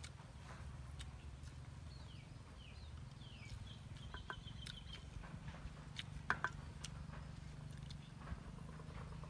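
Faint outdoor ambience of birds: a few short, falling chirps a couple of seconds in, then a brief steady high trill, over a low steady rumble. Two sharp clicks just past six seconds in are the loudest sounds.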